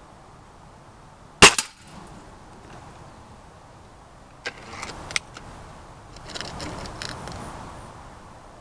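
.22 Beeman RS2 break-barrel spring-piston air rifle firing a single shot about a second and a half in, a sharp crack with a quick second smack right after it. A few seconds later come several light clicks and then a longer, quieter metallic rattle.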